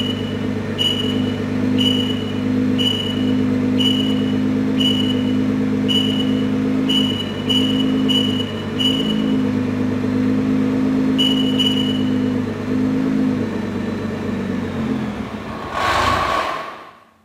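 Nissan GT-R's twin-turbo V6 idling while the Pandora alarm's anti-hijack warning beeps about once a second, the beeps coming closer together as the countdown nears its end. The immobiliser then cuts the engine: it fades and gives a short rough surge near the end before going quiet.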